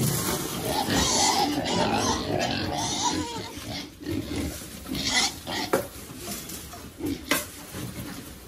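Pigs grunting and squealing, loudest in the first three seconds, with a few sharp knocks later on.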